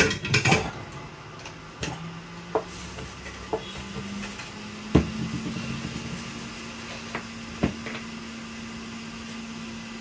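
Steady low hum of a hot-air rework station's blower as it cools down, stepping up slightly in pitch about halfway through. Over it come scattered clicks and knocks of hand tools set down on a workbench; the loudest knock is about five seconds in.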